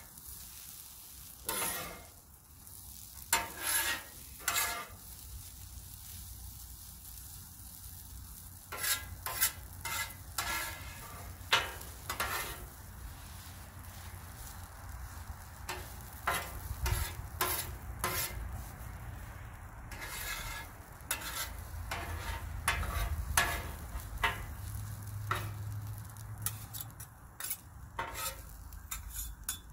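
Metal spatulas scraping, chopping and tapping on the steel cooktop of a Blackstone griddle in short, irregular strokes, turning shredded hash browns that sizzle underneath. A low rumble rises in the second half.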